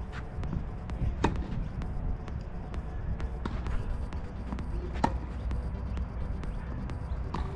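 Tennis ball struck by racquets and bouncing on a hard court during a doubles rally: sharp pops about every two seconds, over a steady low rumble.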